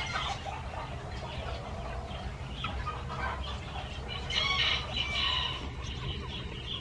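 Golden Sebright bantams clucking and calling, short pitched calls scattered through, with a louder run of calls about four seconds in.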